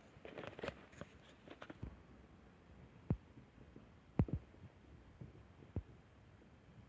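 Slime being worked by hand: a run of small wet crackles and clicks, then a few separate low pops of air pockets bursting, about three, four and six seconds in.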